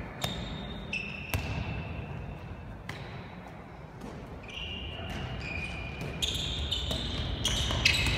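A handball bouncing on the hard court floor and smacking into players' hands as it is passed and caught, about eight separate sharp thuds, the loudest near the end, echoing in a large sports hall.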